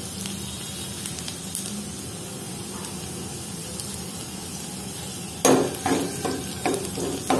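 Chopped garlic and mustard seeds sizzling steadily in hot oil in a nonstick frying pan for a tadka. About five and a half seconds in, a spoon starts stirring, scraping and knocking against the pan in quick strokes.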